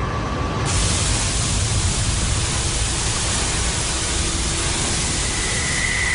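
Methyl isocyanate gas venting under high pressure from a chemical plant's vent stack: a loud, steady rushing hiss over a low rumble, which grows much stronger under a second in. A faint steady high tone comes in near the end.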